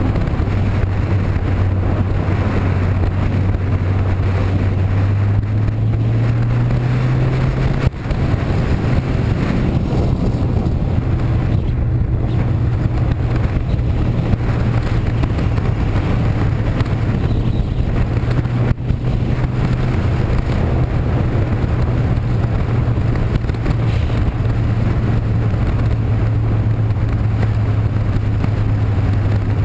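Vehicle engine running steadily under a noisy rush, its hum stepping up in pitch about six seconds in and then holding.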